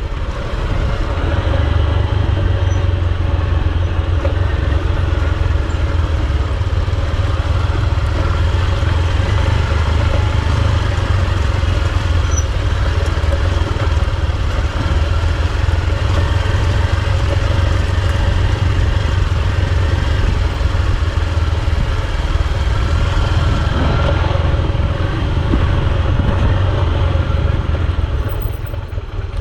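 Honda XR150's single-cylinder four-stroke engine running steadily while the bike is ridden down a dirt track, with a brief change in engine note about three quarters of the way through.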